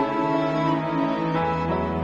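Slow, sad-sounding background music of sustained notes, with a change of bass note about a second and a half in.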